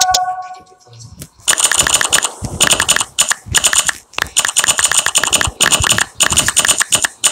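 Rapid key-press clicks from a phone's on-screen keyboard as a message is typed, coming in quick runs of taps with short pauses. They start about a second and a half in.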